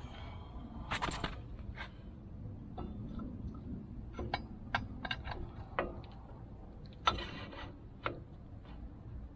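Scattered metal clinks and knocks from a steel excavator quick coupler being handled and its pins and bolts lined up, with two louder ringing clanks, about a second in and about seven seconds in.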